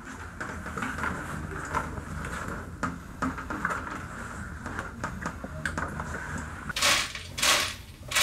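The hard plastic body cowl of a Honda PCX 125 scooter being handled and pushed into place: plastic rubbing and scraping, with scattered clicks and knocks and two louder scrapes near the end.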